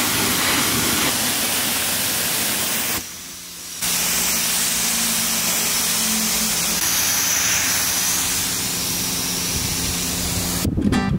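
Self-service car wash high-pressure wand spraying a jet of rinse water onto a car's body panels, a steady hiss. It cuts out briefly about three seconds in and then resumes.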